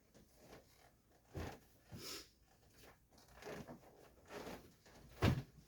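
A few soft, scattered thumps and rustles of a grappling dummy being handled and shifted, the loudest thump near the end.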